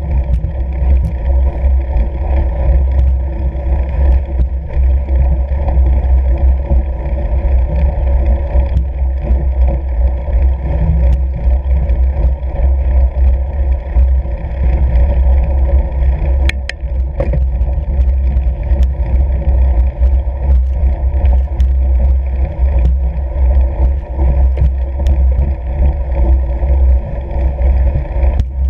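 Steady low rumble of a fat bike rolling over snow-covered lake ice, with wind on the microphone and a few brief clicks.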